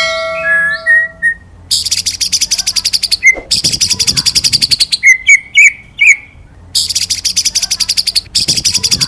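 White-rumped shama (murai batu) singing: short clear whistles broken by three long, fast rattling trills of about a second and a half each, the 'cerrrr' shots of a bird in full song.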